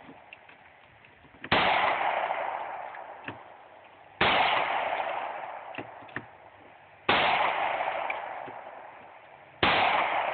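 9mm semi-automatic pistol fired four single shots, slowly paced about two and a half to three seconds apart, each a sharp crack followed by a long fading echo.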